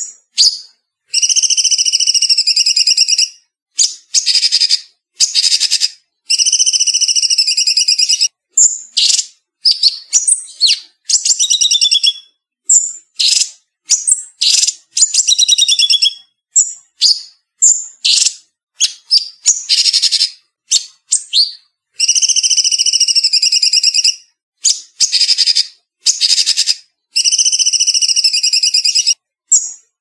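Cucak cungkok songbird singing fast, dense trilled song phrases: several long bursts of about two seconds mixed with short sharp chirps and whistles, separated by brief clean silences.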